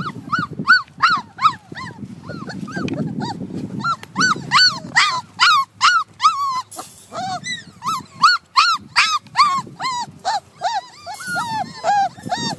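Entlebucher Mountain Dog puppies whining, a long run of short yelps that each rise and fall in pitch, about two or three a second.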